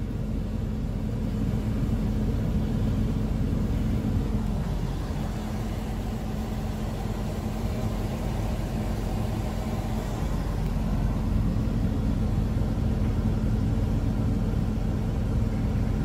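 Vehicle engine idling with a steady low hum, heard from inside the cab, under a haze of wind noise as a dust storm blows outside.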